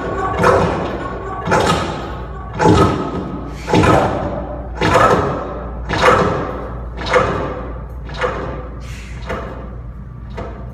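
Live electronic music played through a loudspeaker: a steady pulse of thudding hits about once a second, each ringing out with a decaying tail, over a sustained drone. The hits grow weaker toward the end.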